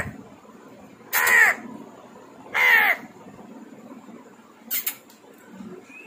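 African grey parrot giving two loud, harsh squawks about a second and a half apart, then a brief sharp double click near the end.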